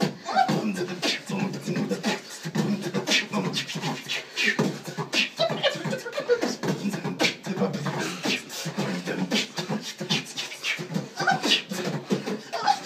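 A person beatboxing: vocal percussion of sharp mouth clicks and snare-like bursts mixed with short wordless vocal sounds.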